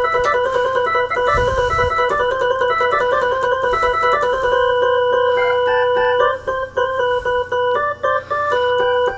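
Instrumental keyboard melody in an organ-like tone: a run of short notes stepping up and down, which stops abruptly near the end.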